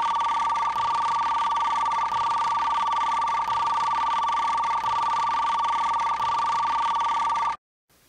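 A steady two-tone electronic signal, like a telephone-line or data-transmission tone, over a hiss; it sounds as coordinates are being received, and cuts off suddenly near the end.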